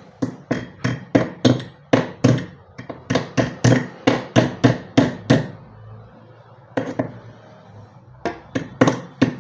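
Pliers used as a hammer, striking over and over to knock a replacement drawer lock into a wooden cabinet. A fast run of sharp knocks, about three a second, for some five seconds, then a pause, one more knock, and a short cluster near the end.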